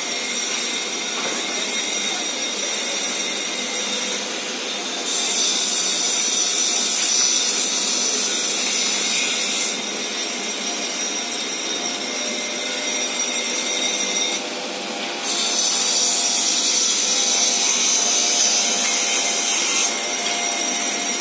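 Woodworking saw cutting wooden boards over the steady running of factory machinery. The cutting gets louder and brighter twice, for about five seconds each time, starting about five seconds in and again about fifteen seconds in.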